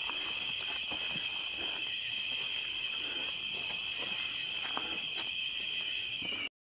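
Chorus of night insects such as crickets, a steady high-pitched drone with no break, which cuts out abruptly just before the end.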